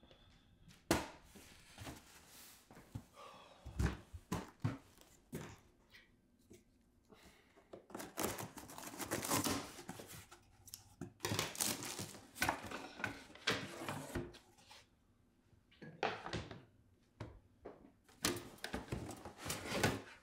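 Packing paper and plastic rustling and crinkling as items are lifted out of a cardboard moving box, with scattered knocks and thunks of objects being handled.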